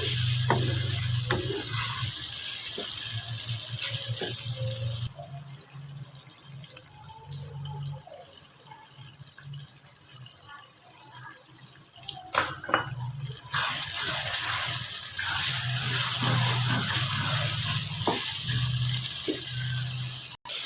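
Food frying in hot oil in a pan: a steady high sizzle with scattered small clicks. The sizzle drops away for several seconds in the middle, then comes back.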